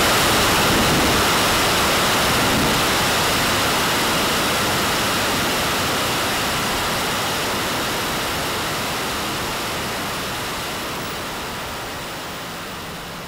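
Steady rushing roar of the RC L-1011 Tristar model's engines and the air streaming past it, heard from the onboard camera through takeoff and climb. The sound fades gradually.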